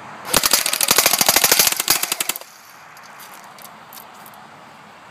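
JG AUG airsoft electric rifle firing one full-auto burst of about two seconds, a rapid string of sharp shots, at point-blank range into a can.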